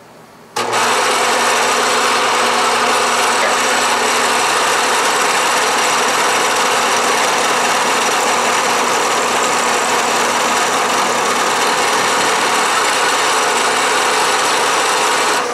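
Bridgeport milling machine's end mill taking one pass across a 1/4-inch water-hardening tool-steel drill rod: a loud, steady cutting noise that starts abruptly about half a second in and breaks off near the end.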